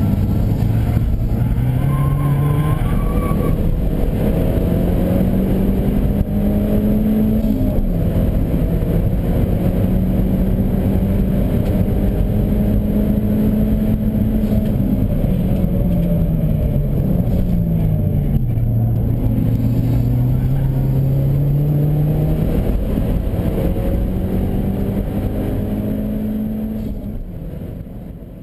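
Car engine on a hot lap, pulling hard with its note climbing, dropping sharply at an upshift about a quarter of the way in, falling through downshifts under braking near the middle, then climbing again, over steady road and wind noise. The sound fades out near the end.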